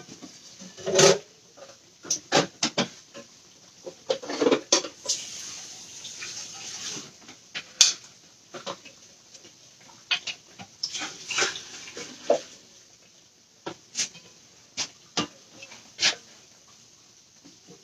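Salmon patties frying in a skillet of hot oil, with irregular clicks and knocks of metal utensils against the pan as the patties are turned. The sizzle swells twice, around five seconds in and again around eleven seconds.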